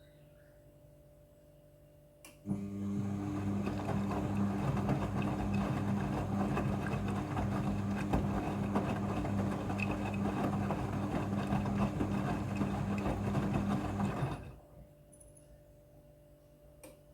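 Front-loading washing machine: a click, then a steady machine hum with rushing water for about twelve seconds, cutting off suddenly. A second faint click comes near the end.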